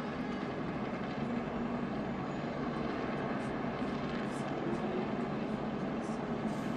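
A pack of NASCAR stock cars racing at speed, their V8 engines blending into one steady drone.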